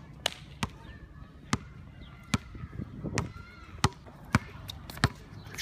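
A basketball dribbled on a hard outdoor court: a series of sharp bounces, one every half second to a second, about eight or nine in all.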